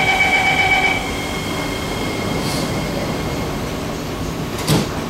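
Door-closing warning tone of an SMRT C151C Kawasaki-CRRC Sifang train, a steady beep that cuts off about a second in. The hum of the stopped carriage continues after it, with a single thump near the end.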